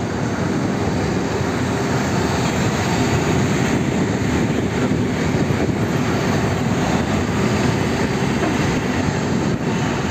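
Two coupled 15D/A diesel shunting locomotives running light past at close range, their diesel engines running loudly in a steady drone.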